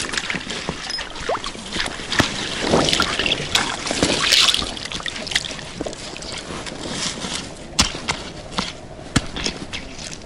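Shallow river water sloshing and trickling around hands cleaning pink salmon at the water's edge, with scattered sharp clicks and knocks of pebbles.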